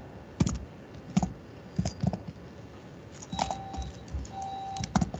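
Computer keyboard keys clicking in irregular keystrokes as a line of code is typed. A faint steady tone comes and goes in the second half.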